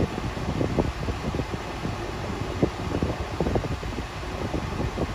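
Steady rushing noise with an irregular low rumble: wind buffeting the phone's microphone outdoors.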